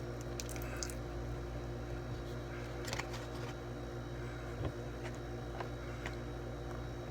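Slime being squished and kneaded by hand, with scattered small clicks and pops.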